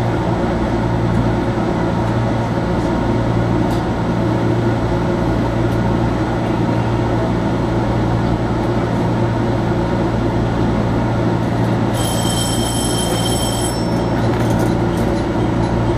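JR Kyushu 415-series electric train running along the track, heard from the driver's cab: a steady rumble of motors and wheels on rail. About twelve seconds in, a brief high-pitched tone with overtones sounds for under two seconds.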